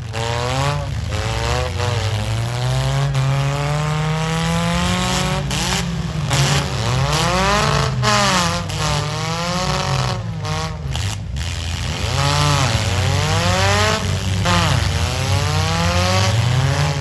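Demolition derby cars' engines revving hard again and again, their pitch climbing and dropping every second or two, with several engines overlapping.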